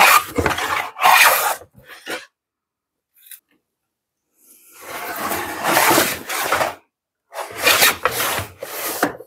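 Hand bench plane taking shavings off a wooden board face: about five rasping push strokes, with a pause of about two seconds before one long stroke midway.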